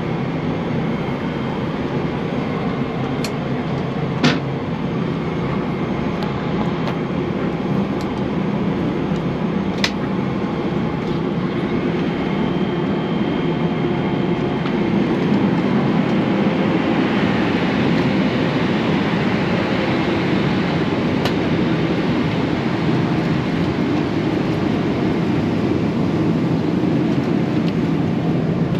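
Steady in-flight cabin noise of a Boeing 777-300ER: the even roar of airflow and engines, growing a little louder after about fifteen seconds. A couple of sharp clicks come in the first ten seconds.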